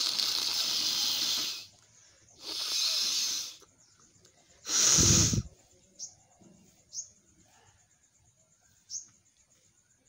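A person blowing their nose hard three times, the first blow long and the third the loudest and shortest, followed by three brief sniffs.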